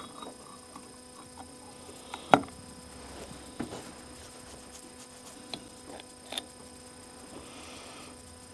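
Scattered light clicks and taps of small carburetor parts being handled and fitted by hand, with one sharper knock a little over two seconds in.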